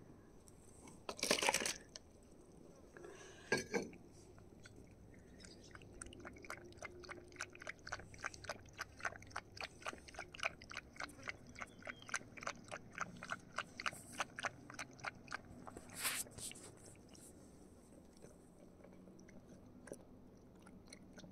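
A cat chewing food from a bowl: a run of small crunching clicks, several a second, through the middle of the stretch. A few brief louder rustles come about a second in, near four seconds and near sixteen seconds.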